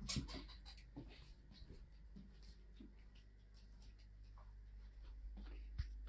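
Quiet room with faint clicks and scuffs on a wooden floor: a few sharper clicks in the first second, then sparse light taps, and a soft thump near the end.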